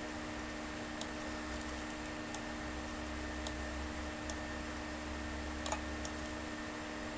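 Computer mouse clicking, about seven sharp clicks at uneven intervals, two of them close together near the end, over a steady low electrical hum.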